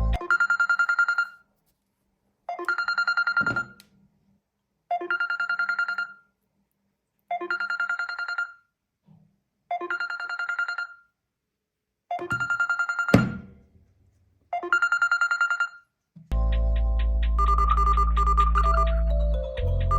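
Phone ringtone: a short, rapidly pulsing electronic ring that repeats about every two and a half seconds, seven times, with a sharp click during the sixth ring. About four seconds before the end a different ringtone takes over, a fuller electronic melody with a deep bass line.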